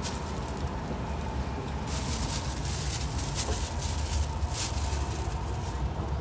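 Street background noise: a steady low traffic rumble with a faint hum and a few sharp clicks.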